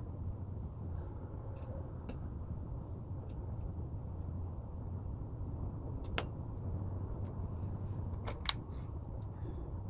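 A steady low mechanical hum, with a few sharp clicks of a metal dental instrument being handled and set down on the bench: the loudest click comes about six seconds in, and a quick cluster of clicks follows about eight and a half seconds in.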